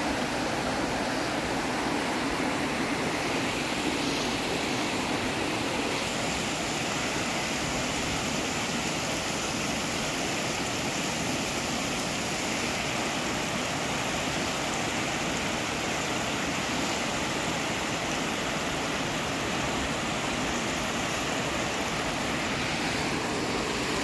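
Rushing water of a mountain stream, a steady, unchanging rush.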